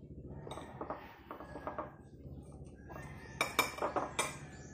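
Metal spoon clinking and scraping against a plate while eating, with a cluster of sharper clinks near the end.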